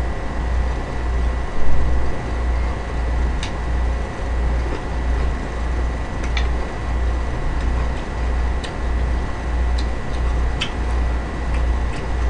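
A low hum that pulses in a steady, even rhythm, with a few faint, sharp clicks of chopsticks against a stainless steel bowl of noodles.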